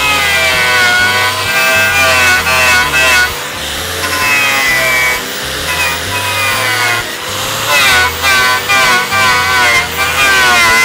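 Makita 4-1/2-inch angle grinder running with a knotted wire wheel pressed against the edge of a wooden board, the wire wheel brushing and smoothing the wood. The motor's whine wavers up and down in pitch as the wheel is pushed in and eased off, over a scratchy rasp of wire on wood.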